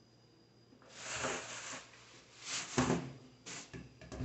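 Handling noises at a top-loading washing machine: several bursts of rustling and knocking as towels are pulled off it and its plastic lid is opened, with a few sharp clicks near the end.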